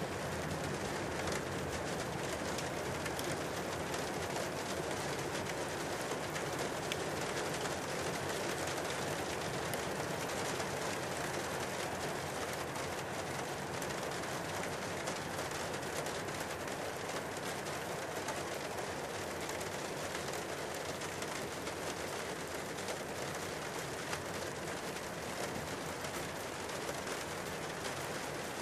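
Debris flow of mud and rock rushing down a mountain gully: a steady rushing noise with a constant patter of small clicks and knocks from moving stones.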